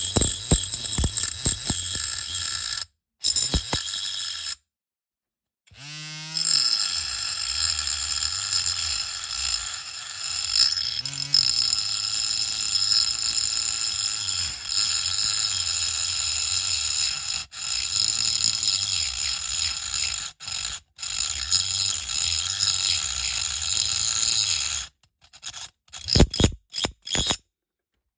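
Small high-speed rotary tool whining steadily as it cuts into a diecast model car's metal body. It cuts out abruptly several times and spins back up about six seconds in.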